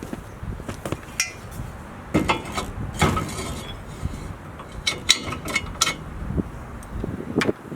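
Metal parts of a steel bandsaw mount and its pin clinking and knocking together as they are handled, a scatter of sharp clanks in several clusters.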